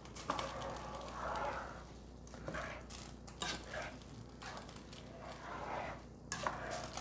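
Slotted spatula stirring bulgur wheat and green lentils in a pot of stock, with irregular wet scraping strokes and a few light knocks against the pot.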